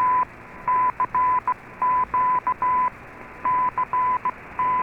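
Morse code sent as a keyed tone of about 1 kHz, in dashes and dots in groups of four, heard through a shortwave AM receiver with steady band hiss behind it. It is the program's CQ call to shortwave listeners and radio amateurs.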